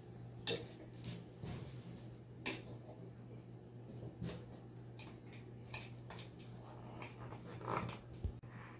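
Small plastic clicks and taps as the clear plastic parts of a face shield are handled and fitted together by hand, a few scattered clicks a second or so apart.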